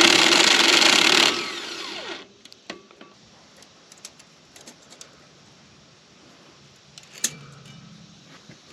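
A handheld power tool runs in one short burst of about a second and a half, then winds down. A few light clicks and taps follow.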